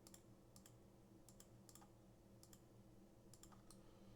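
Near silence with faint computer mouse clicks, single and in quick pairs, scattered unevenly.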